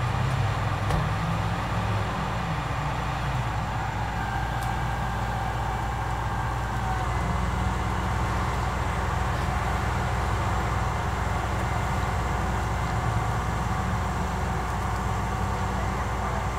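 A vehicle engine idles steadily, a continuous low hum under a background of street traffic.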